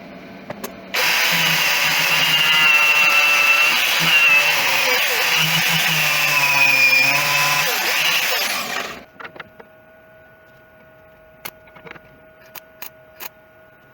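Angle grinder grinding down welds on sheet steel, a loud run with a high whine that wavers as it bites. It stops suddenly near the end, followed by a few light clicks.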